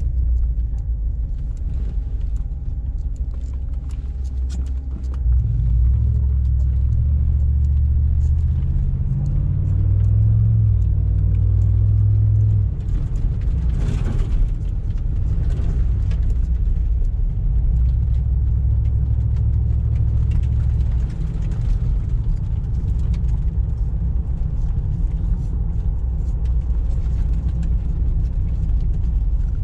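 Cadillac DeVille's Northstar V8 through a Thrush exhaust with the resonator deleted, heard from inside the cabin: a deep, steady exhaust rumble. It swells about five seconds in as the car accelerates, eases off, and swells again later. A brief knock sounds about halfway through.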